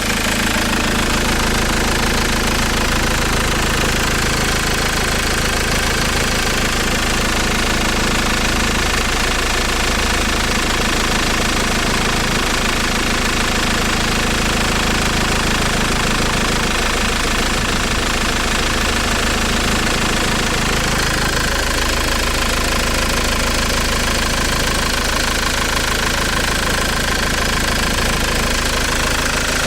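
An engine running steadily at idle, with a knock in the background.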